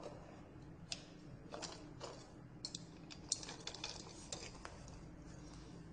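Light, scattered clicks and knocks of small kitchen utensils in a utensil cup knocking against each other and the cup as they are handled.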